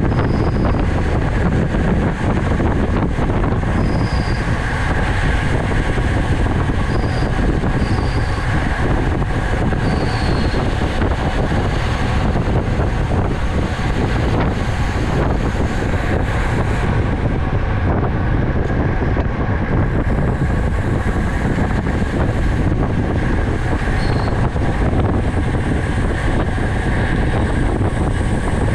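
Steady, loud wind rushing over the microphone of a camera riding on a bicycle at race speed, with a few faint, short high chirps over it.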